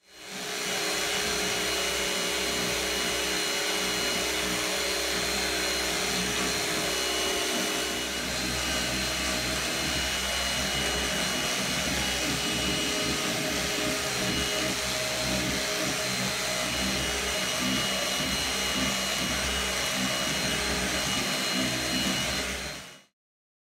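Stick vacuum cleaner running steadily, a constant motor whine over a rushing of air, its lower motor note shifting slightly about eight seconds in.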